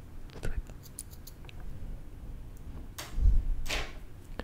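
Close-miked ASMR sounds on a foam-covered microphone: a few soft mouth clicks early on, then about three seconds in a short rushing noise with a low rumble, lasting under a second.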